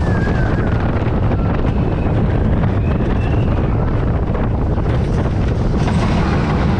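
Wind buffeting the microphone over the steady rumble of a steel roller coaster train running along its track, heard from a seat on the moving train.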